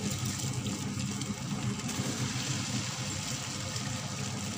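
Tabletop wet grinder running: its steel drum turning against the grinding roller, with a steady motor hum.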